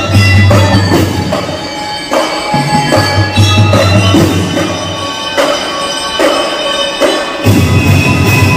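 A drum and lyre band playing live: bell lyres ring a held, tuneful melody over snare and bass drum beats. The deep drumming comes and goes, strongest at the start, for a second around the middle, and again near the end.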